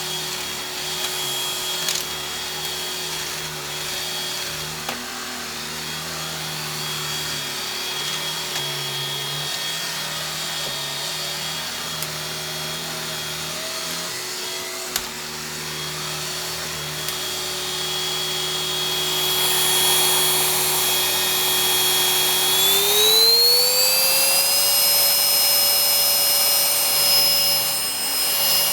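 Iris Ohyama cordless stick vacuum with a rotating brush head running steadily, a motor whine over rushing air as it sucks up shredded paper. About three-quarters of the way through, the whine rises in pitch and then holds higher and slightly louder.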